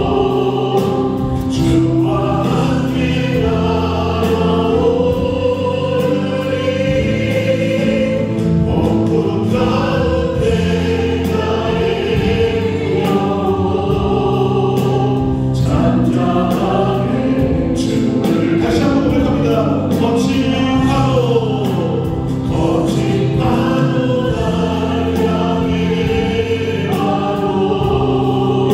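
A church praise team's singers singing a gospel worship song together, backed by a band of keyboard, drums and bass guitar.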